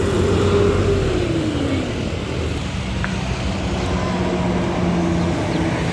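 Large bus driving past on the road, its engine running with a low rumble. A held tone slides down in pitch about a second in, and a lower steady tone follows.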